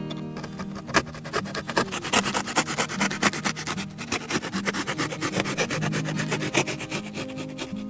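Background music of low held notes that change step by step, over a rapid run of short scraping or rubbing strokes.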